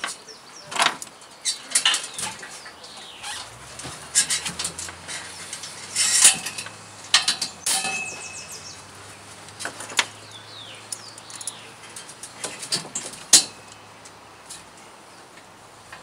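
Steel chain clinking and rattling as it is wrapped around a mountain bike's front wheel and a steel bike rack, with scattered metal knocks and clicks throughout. A low steady hum starts a few seconds in and runs underneath.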